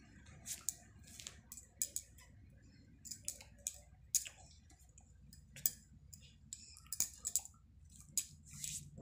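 Hands brushing, rubbing and tapping against each other while gesturing: irregular short clicks and soft rubbing noises, a few every second, over a low steady hum.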